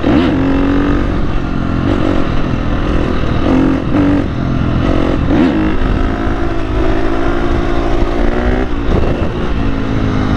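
Dirt bike engine running hard as the bike accelerates along a street. The pitch climbs and falls back several times as it revs and shifts, then holds steady for a few seconds near the end, over a low rumble of wind.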